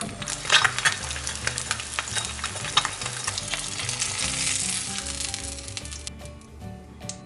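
An egg sizzling as it fries in oil in a nonstick pan, with sharp ticks and scrapes as a nylon spatula works under it. The sizzle fades about six seconds in as the egg is lifted out on the spatula.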